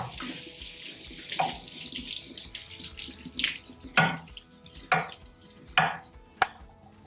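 A hiss for the first couple of seconds, then a kitchen knife chopping vegetables on a cutting board: about five sharp strokes roughly a second apart.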